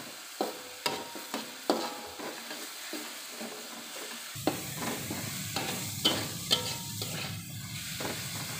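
Chili-shallot-garlic spice paste with lemongrass, galangal and bay leaves sizzling in hot oil in a wok, stir-fried until fragrant. A metal spatula scrapes and clicks against the wok about twice a second over the sizzle. A low steady hum comes in about halfway through.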